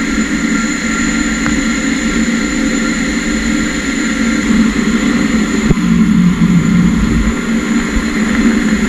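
PUMA 2600SY II CNC lathe turning a 15-5 stainless steel part with an ID grooving tool under flood coolant: a steady machine sound with a low hum and a few constant high tones over the hiss of coolant spray.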